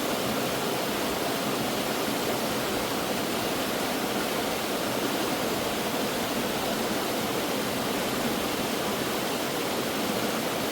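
Mountain stream water flowing, a steady, even rush with no breaks.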